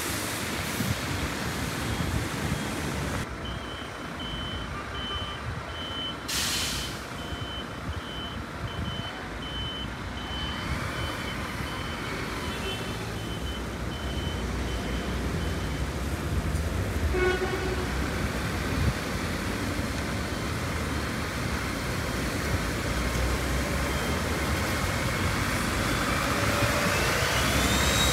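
Buses and traffic running in the street. There is a short air-brake hiss about six seconds in, and a run of evenly spaced high beeps lasting about twelve seconds. Near the end a vehicle engine passes close, its pitch rising then falling.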